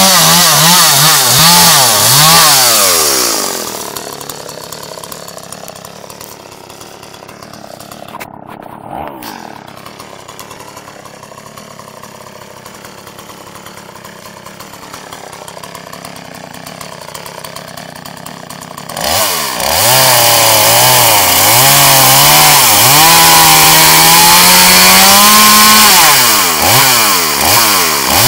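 Two-stroke gasoline chainsaw revved high and cutting logs for the first few seconds, then dropping to a much quieter idle for about fifteen seconds. It is revved up again and held at high speed to cut, its pitch rising and falling as the throttle is worked, with a short dip near the end.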